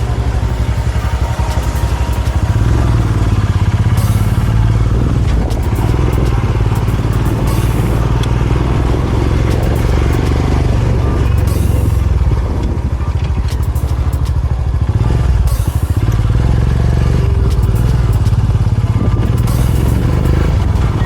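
Royal Enfield Himalayan motorcycle being ridden, its single-cylinder engine running steadily with a deep low thrum.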